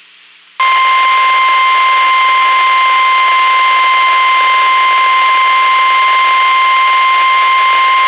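NOAA Weather Radio warning alarm tone: one loud, steady 1050 Hz tone that starts about half a second in over faint radio static and holds. It is the signal that a weather warning broadcast is about to follow.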